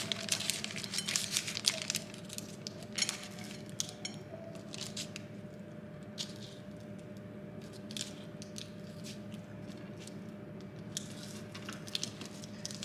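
Baking paper crinkling and rustling in short, scattered bursts, with soft squishy handling of puff pastry as it is folded over and pressed down by hand, over a faint steady hum.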